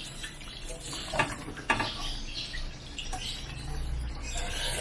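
Metal spoon scooping sauce from a pan of saucy chicken stew, with small wet sounds and two light clicks about half a second apart a little over a second in.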